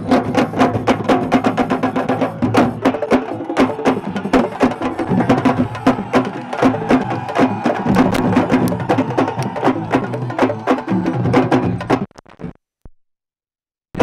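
Sabar drum ensemble playing a fast, dense rhythm of sharp strikes, accompanying laamb wrestlers' dance. The sound cuts out suddenly about two seconds before the end.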